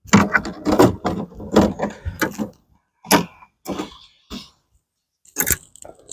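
Fishing rods and tackle being handled: a run of clattering and rattling, then a few separate knocks and clicks.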